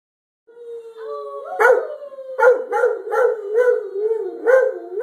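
A dog howling: drawn-out howls that begin about half a second in, then break into a run of wavering, rising-and-falling pulses, about two or three a second.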